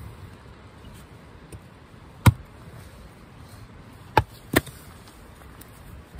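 Hatchet splitting firewood on a wooden chopping round: three sharp chopping knocks, the first about two seconds in and the loudest, then two more close together about four seconds in.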